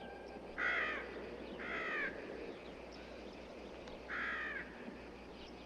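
A crow cawing three times, each caw short and the gaps irregular, over faint background noise in a film soundtrack with no music.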